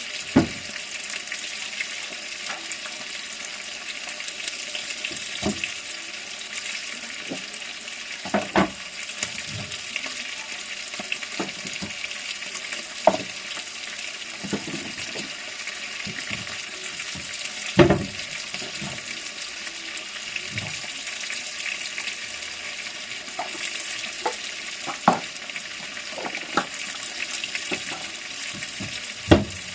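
Food frying in a pan with a steady sizzle, broken by occasional sharp knocks of a utensil against the pan.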